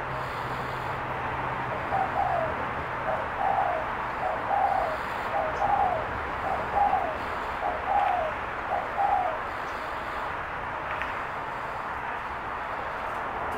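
Spotted dove cooing: a run of about seven short, even coos, roughly one a second, over steady background noise.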